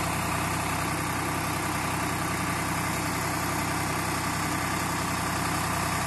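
Tractor's diesel engine running steadily, driving a tractor-mounted backhoe as its bucket is raised with a load of soil.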